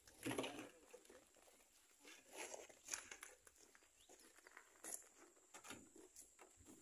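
Near silence, broken by faint scattered clicks and rustles.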